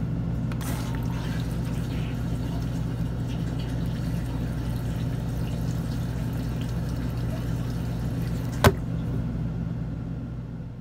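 Steady low hum with a faint hiss, a single sharp click about three-quarters of the way through, then the sound fades out.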